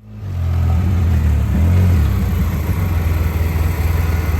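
Vehicle engine running steadily with a loud, low hum, starting abruptly and easing slightly near the end.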